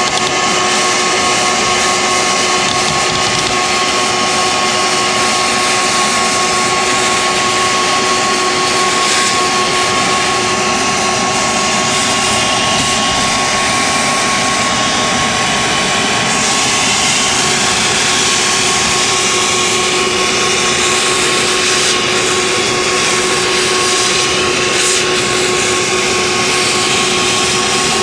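A shop wet vac runs steadily with a constant motor whine, its nozzle sucking surface dirt and coil-cleaner foam off a wet evaporator coil.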